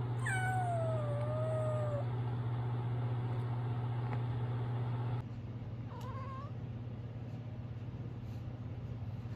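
Kitten meowing: one long meow that falls in pitch and lifts slightly at the end, then a short, rising meow about six seconds in, over a steady low hum.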